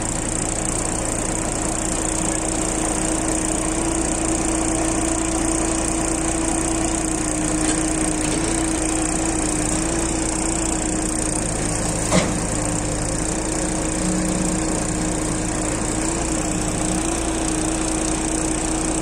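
Mini excavator's diesel engine running steadily under load as the machine levers itself up on its boom and blade, its pitch holding nearly constant with slight wobbles. A single sharp knock about twelve seconds in.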